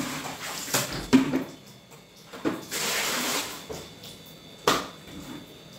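Water sloshing and splashing as hands work in a plastic bucket of soapy water, with a few sharp knocks from the plastic buckets.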